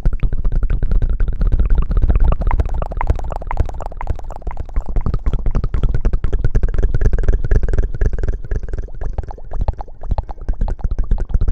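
Close-miked ASMR rubbing and rustling: dense, irregular crackling and scratching against the microphone, with a heavy low rumble.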